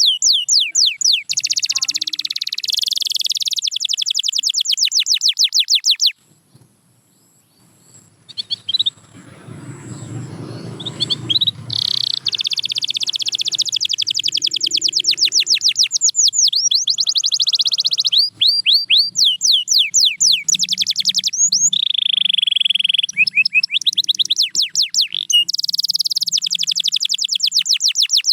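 Canary singing long rapid trills: fast runs of repeated high notes, changing from one tour to the next. The song stops for a few seconds about six seconds in, then resumes.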